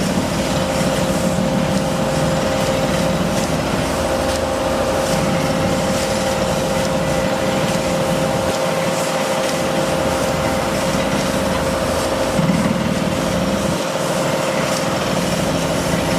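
Machinery running steadily: an engine drone that swells and eases every few seconds under a constant whine.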